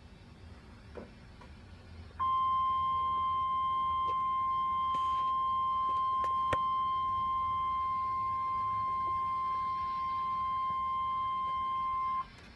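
NOAA Weather Radio 1050 Hz warning alarm tone: a single steady, piercing tone that starts about two seconds in, holds for about ten seconds and cuts off abruptly. It signals that a warning-level alert, here a severe thunderstorm warning, is being broadcast. Faint radio hiss comes before it.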